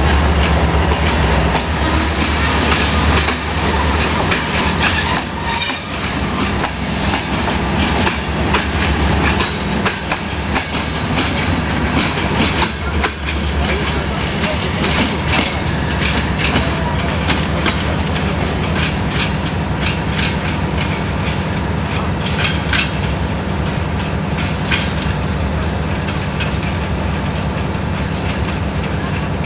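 A departing diesel-hauled passenger train's coaches rolling past and drawing away, their wheels clacking in repeated short clicks over the rail joints above a steady low hum.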